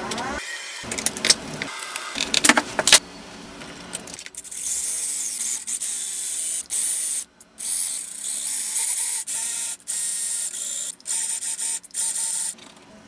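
Small plastic and metal parts clicking and knocking as an RC crawler chassis is put together by hand. After about four seconds a steady high hiss takes over, cutting out abruptly several times.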